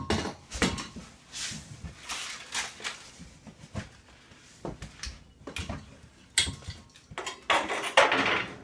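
Metal clinks, clanks and scrapes of a gas water heater's burner assembly being handled on a tile floor and slid back into the combustion chamber, in a string of sharp knocks with the loudest clatter near the end.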